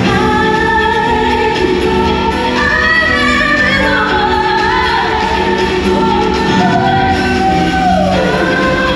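A woman singing live over band accompaniment, holding long notes that slide between pitches, with a falling run near the end, amplified through a concert PA.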